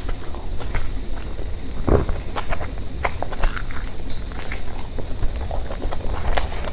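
Close-miked eating sounds: irregular small clicks and smacks of chewing and biting, with one duller thump about two seconds in.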